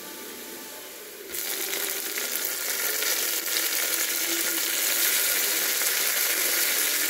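Chopped tomatoes and green chillies dropped into hot oil with frying onions in an aluminium pressure cooker: a quiet frying hiss jumps suddenly to loud sizzling about a second in, then sizzles steadily.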